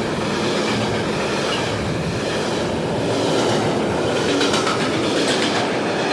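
Train running on rails: a steady rumbling clatter of wheels on track, with sharper clicks about four to five seconds in.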